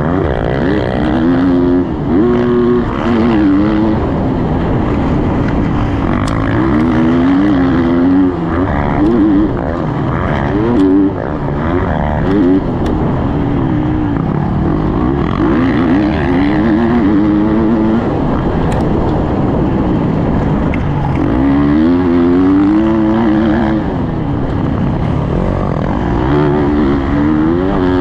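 Husqvarna motocross bike engine heard from on board, revving up and dropping back again and again as the rider accelerates and rolls off around the track, over a steady rush of wind and track noise, with a few brief knocks.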